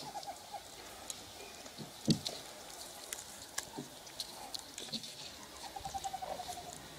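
Meerkats calling among themselves: scattered soft chirps and clicks, a louder short falling call about two seconds in, and a quick run of chirps, about ten a second, near the end.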